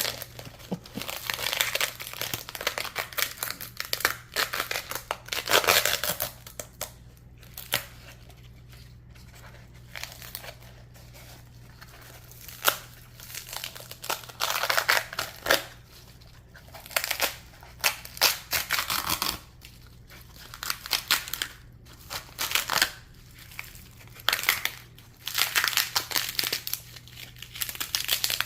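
Dry, brittle skin of an unsoaked, fully dried loofah gourd crackling and crunching as it is peeled off by hand, in irregular bursts with a quieter stretch about a third of the way through.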